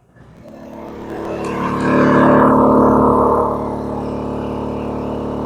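Westinghouse WH3700iXLTc inverter generator's gasoline engine running hard under an overload: two roof ACs, a refrigerator and an electric stovetop, enough to pull the output voltage very low. It grows louder over the first two seconds, then runs steadily.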